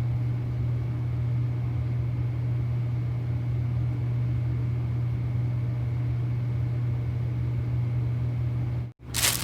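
A steady low electrical hum with a faint high whine above it, cut off abruptly near the end.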